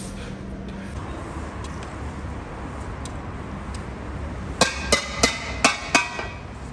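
Five sharp metallic clanks in quick succession, about three a second, each ringing briefly, over a steady low rumble.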